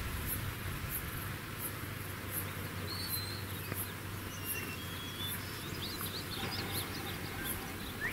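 Grassland ambience: a high, regular insect chirp repeating about every two-thirds of a second, with short scattered bird chirps and whistles.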